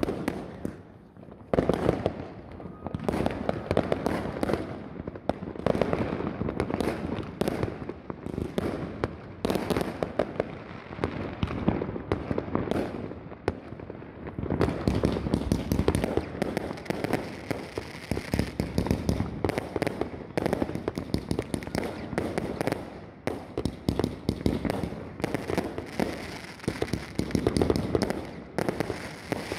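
Fireworks going off almost without a break: rockets and firecrackers banging and crackling, growing denser about halfway through.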